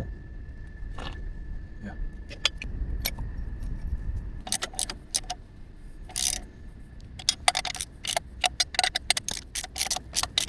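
Metal hand tools clinking and clicking on the exhaust header bolts as the new header is fitted and tightened. Scattered clinks at first, then quick runs of clicks through the second half.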